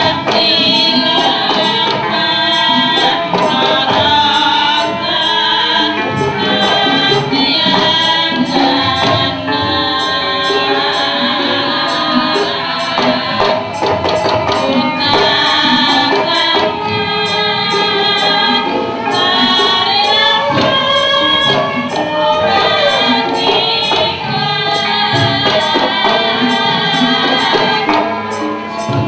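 Javanese gamelan music accompanying a wayang kulit shadow-puppet play, with singing and a sharp metallic clinking beat, about three strikes a second, typical of the dalang's kecrek metal plates.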